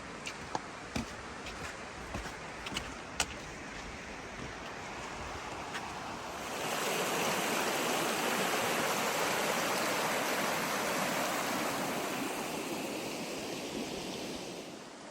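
Virgin River rushing steadily over rocks, with a few sharp clicks in the first half. About six and a half seconds in, the water suddenly becomes louder and fuller, then eases slightly near the end.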